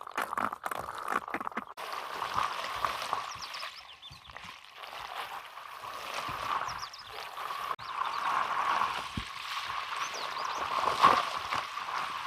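Water flowing through a pipe: a steady rushing hiss with irregular gurgles and small knocks, and a louder gurgle about eleven seconds in.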